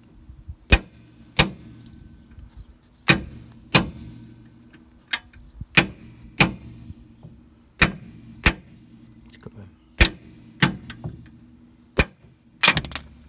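Hammer tapping a 1-inch socket to drive the old kingpin bearing inner race out of a Suzuki Jimny's front swivel hub: about a dozen sharp taps, mostly in pairs, with short pauses between.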